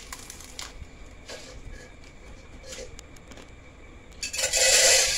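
Bites and chewing of a crispy deep-fried spring roll: a few sharp crunches in the first few seconds, then a loud breathy puff of air through pursed lips near the end.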